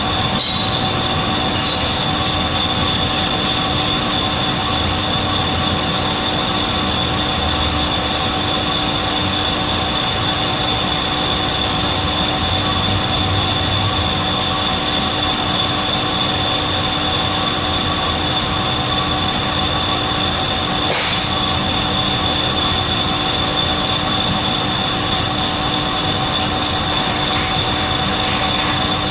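Metal lathe running with a boring bar cutting the bore of a 1-inch mild steel plate part on the face plate: a steady mechanical run with a constant high whine over it. A brief high tick sounds about two-thirds of the way through.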